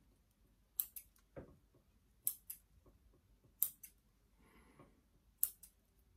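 Scissors trimming back the shoots of a young yew bonsai: four sharp snips, three of them in quick pairs.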